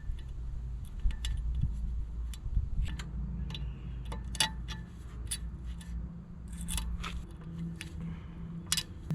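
Irregular small metallic clicks and clinks from a cotter pin being fitted through the boat propeller shaft's retainer and worked into place.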